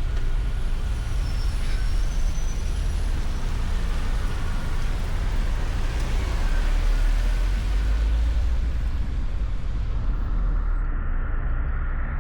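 Car driving: a steady low rumble of engine and tyre noise that goes on without a break.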